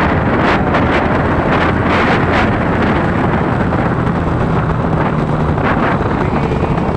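Wind rushing and buffeting over the phone's microphone while riding a motorcycle, in repeated gusts, with a steady low engine hum underneath that comes through more clearly about four seconds in.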